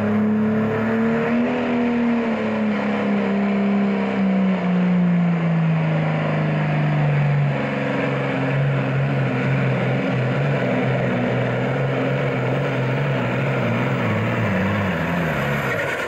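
John Deere super farm pulling tractor's diesel engine running hard under load while pulling the sled; its note drops steadily over the first half of the pull, then holds lower and wavers before cutting off near the end.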